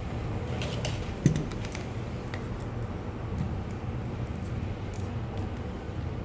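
Scattered small clicks and taps of a plastic 3D printing pen being handled while filament is fed into it, with one sharper knock about a second in, over a steady low hum.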